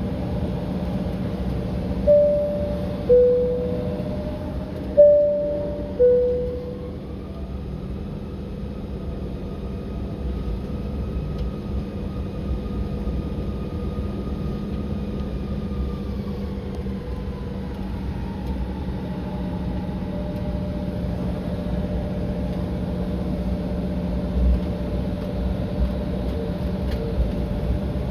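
Steady jet airliner cabin noise with a low hum, heard inside a Republic Airways Embraer regional jet. About two seconds in, the cabin chime sounds twice as a high-low two-tone pair, the second pair about three seconds after the first.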